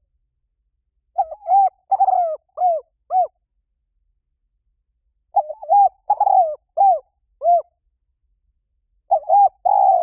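Spotted dove cooing in three phrases, each a run of four or five arched coos lasting about two seconds, with the phrases about four seconds apart. The last phrase is cut off at the end.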